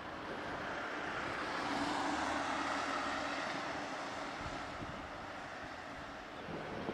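A passing vehicle: a steady rumble with a faint hum that swells to its loudest two to three seconds in, then fades.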